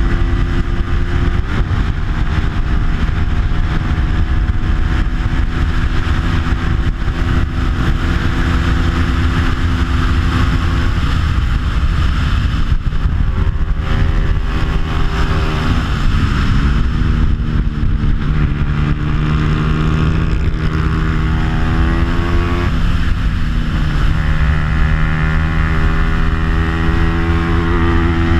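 Bajaj Pulsar 200's single-cylinder four-stroke engine, stock but fitted with an aftermarket exhaust, running hard on track. The revs drop and climb again several times through gear changes and corners.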